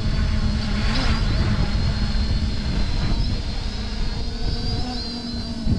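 Holybro X500 v2 quadcopter's four motors and propellers humming steadily as it hovers low during an autotune flight. The hum has a slightly wavering high whine, over a low rumble of wind on the microphone.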